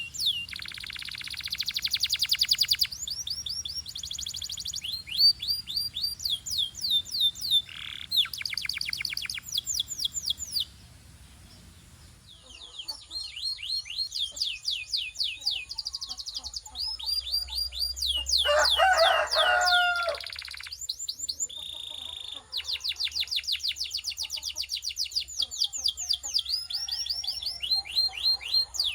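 Canary singing: fast trills of repeated downward-sweeping high notes that switch to a new pattern every second or two, with a brief pause about ten seconds in and a lower warbling phrase about two-thirds of the way through.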